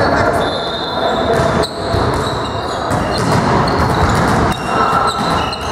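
Volleyball being played in a large, echoing sports hall: ball thuds and bounces off hands and the floor, with players' voices in the background.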